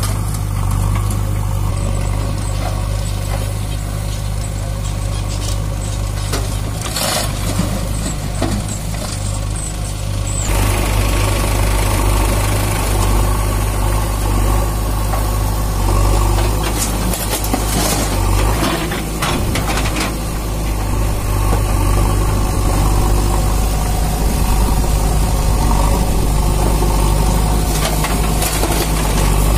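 Diesel engines of a JCB 3DX backhoe loader and a Sonalika DI 47 RX tractor running steadily as the backhoe digs and loads rubble, growing louder about ten seconds in. Stones and earth clatter into the tractor's trolley a few times.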